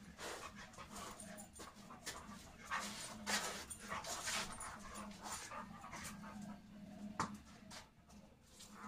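A dog panting in quick, uneven breaths, with a sharp click about seven seconds in.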